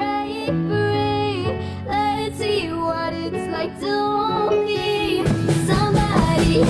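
A young girl singing a pop song into a microphone, holding long notes over the band's backing. About five seconds in, the drums come in and the whole band plays louder.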